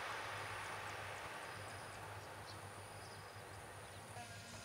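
Airbus A330 jet engines dying away as the airliner rolls out down the runway after touchdown, a fading rush of noise over a steady low hum. A few faint high chirps sound now and then.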